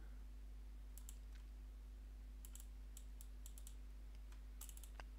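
Faint, irregular light clicks at a computer, coming in small clusters, over a steady low electrical hum.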